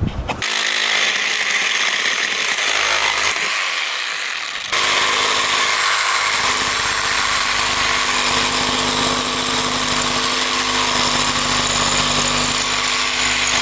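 Kobalt reciprocating saw running, its blade cutting through the nails between a board and the framing. The saw eases off briefly about four seconds in, then runs steadily again.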